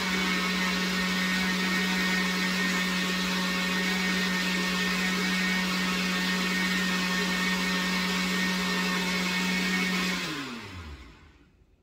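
Countertop blender blending oats and water, its motor running at one steady speed. It is switched off about ten seconds in, and the motor's pitch falls as it winds down.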